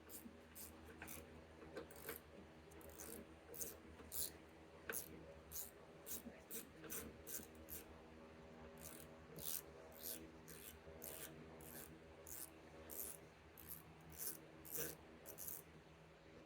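Ratchet fitted with a T25 Torx bit clicking as it backs a screw out of the car door: faint, repeated short rasping clicks, about two or three strokes a second.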